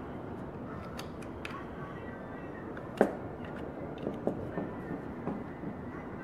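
Metal tool scraping and clicking against a boiled deer skull plate, working off the softened, gelatinous tissue. There is a sharp knock about three seconds in and a run of lighter clicks after it, over a steady background hiss.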